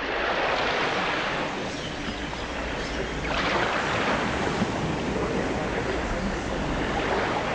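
A rushing, washing noise that swells and fades, rising about three seconds in and again near the end.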